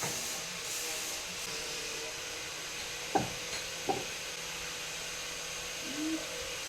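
A steady hissing noise, with two sharp knocks a little past halfway.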